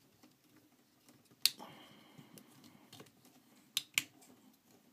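Hard plastic parts of a Transformers Masterpiece MP-11 Starscream figure clicking into place as it is transformed by hand: one sharp click about one and a half seconds in, a softer one around three seconds, then two close together near the end.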